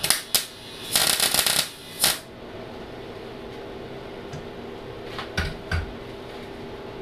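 Electric welder striking short tack welds: four crackling arc bursts in the first two seconds, the longest about two-thirds of a second, as a 17 mm bolt is welded onto a sheared, seized bolt stub to give it grip for extraction. A couple of low metal knocks follow about five seconds in, over a steady hum.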